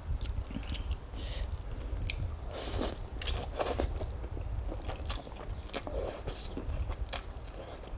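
Close-miked mouth sounds of eating fermented rice noodles (khanom jeen) in a spicy salad: wet chewing and sharp smacking clicks. Two longer sucking sounds come about three seconds in as noodles are drawn into the mouth.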